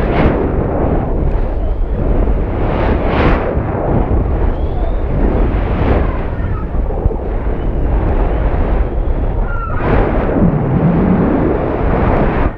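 Wind buffeting the microphone of a high-altitude balloon payload's camera as it falls under its parachute after the balloon burst: a continuous rushing rumble that flares up in gusts a few times.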